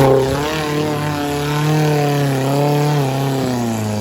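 Off-road 4x4's engine running under load, its pitch rising and falling as the throttle is worked.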